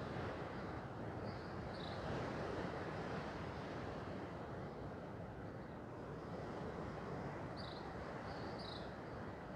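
Steady rushing outdoor background noise, like wind, with a few faint high chirps, a couple about a second and a half in and more near the end.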